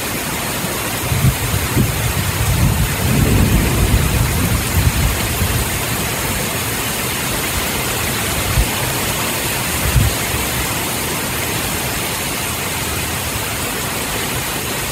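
Torrential rain pouring down in a steady hiss. A low rumble swells for a couple of seconds near the start, and a few brief thumps stand out above it.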